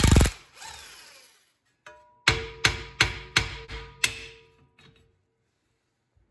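An impact wrench's rattling burst cuts off just after the start; then, about two seconds in, six quick sledgehammer blows ring out on the Dana 30's steel steering knuckle, knocking at the tapered ball-joint stud of the steering linkage to break it loose.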